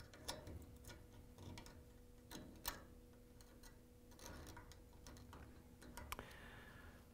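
Faint, scattered clicks and scrapes of a small flathead screwdriver prying a mesh inlet valve screen out of a washer's water valve fitting.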